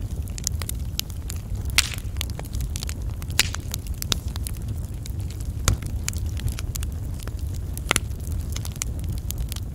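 Wood fire burning with dense crackling and popping over a steady low rumble; four sharper pops stand out.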